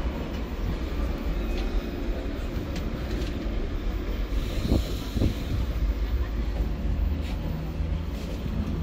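Train at the railway station: a steady low rumble, with a few brief higher sounds about five seconds in.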